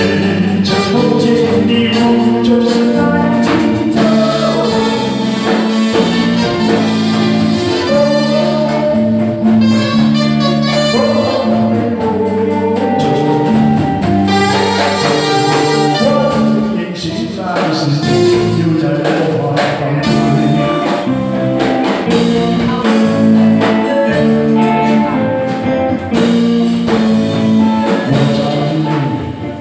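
A male vocalist singing through a microphone over a live band with drums, loud and continuous.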